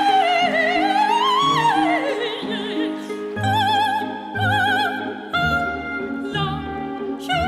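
A woman singing in an operatic style with a wide vibrato over an instrumental accompaniment. Her long note climbs and then falls away in the first two seconds, followed by a run of shorter held notes.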